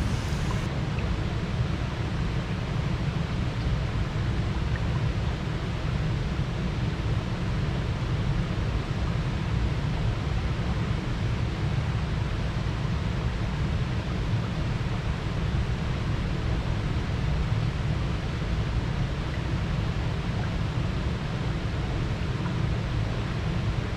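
Steady rushing of river water, with a deep low rumble underneath and no changes.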